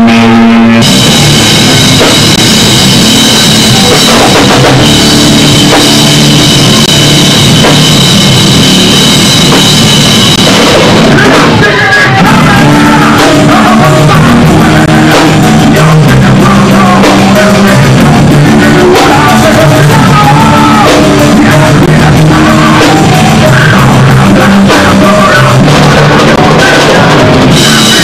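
Live rock band playing very loud: a drum kit with electric guitar. Steady high ringing tones drop out about eleven seconds in, and a riff of low notes comes to the fore.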